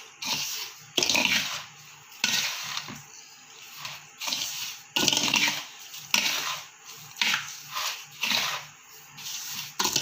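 Hands mixing a dry, crumbly mixture of roasted rava, sugar and grated coconut in a large vessel: repeated rustling, grainy strokes at about one a second.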